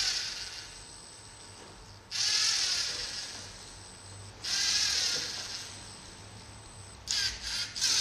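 Small electric gear motors of a hobby can-fetching robot whirring in short bursts: each starts suddenly and fades over about a second and a half, repeating every two seconds or so, with a few quick short bursts near the end.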